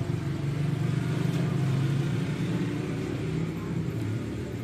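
A low, steady engine-like rumble that eases off toward the end.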